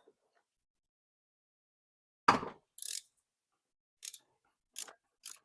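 A single loud knock of a tool against metal, then a short rattle and a few separate clicks of a ratchet wrench on an extension loosening the oil filter housing cap.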